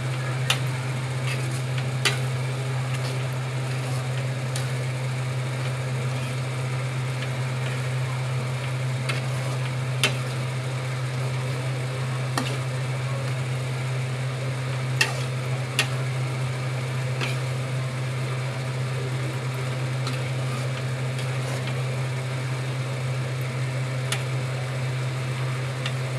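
A metal spoon stirring and scraping macaroni in a metal kadhai on a lit gas stove, with some sizzling and occasional sharp clinks of the spoon against the pan. A steady low hum sits under it throughout.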